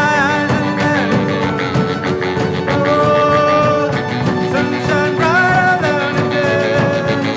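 A band playing: strummed acoustic guitar keeps a steady rhythm under a melody line that holds notes and slides between them.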